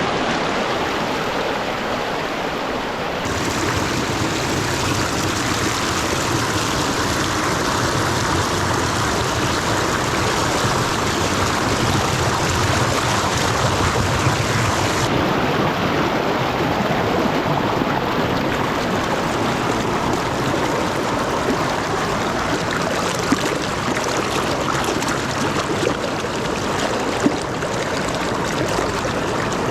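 River rapids: white water rushing steadily over rocks, a dense, even hiss that grows fuller about three seconds in.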